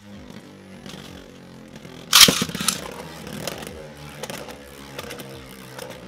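Two Beyblade Burst tops, Strike Valtryek V3 and Xcalius X3, spinning in a plastic stadium with a steady whirring. They clash loudly in a sharp clatter about two seconds in, then knock together lightly a few more times as they circle.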